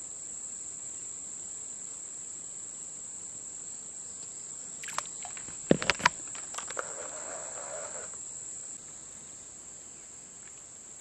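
A steady high-pitched drone of insects such as crickets or cicadas, with a few sharp clicks about five to seven seconds in and a brief rustle just after.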